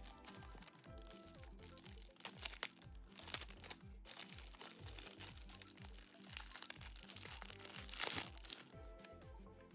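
Background music with a steady bass beat, with the crinkling of small plastic packets and tissue paper as they are handled; the crinkling is loudest about eight seconds in.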